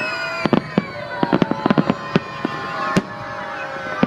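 Fireworks salute going off: a rapid, irregular series of sharp crackling pops and bangs starting about half a second in, over several steady whistling tones that slowly fall in pitch.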